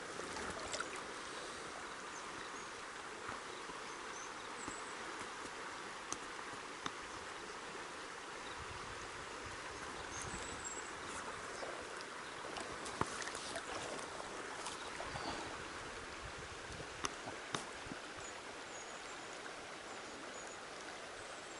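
River current running past in a steady rush of water, with a few faint, short clicks scattered through it.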